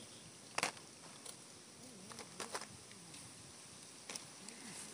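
A few sharp clicks and light rustles from handling fire-grilled small fish on a banana leaf, over a faint steady outdoor background.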